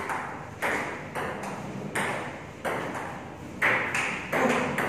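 Table tennis rally: a celluloid-type ball clicking off rubber bats and bouncing on the table, a sharp click roughly every half second to second, with a short ring after each in the room.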